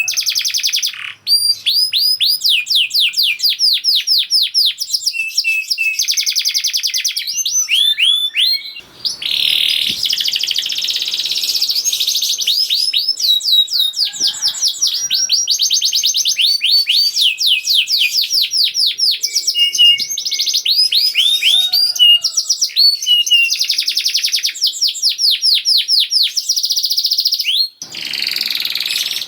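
Domestic canary singing a fast, dense song of rolling trills, each a quick run of rapidly repeated sweeping notes, switching to a new trill every second or two with brief breaks.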